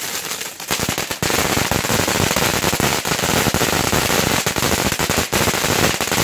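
Fireworks crackling: a rapid, dense, unbroken run of small bangs that gets louder about a second in.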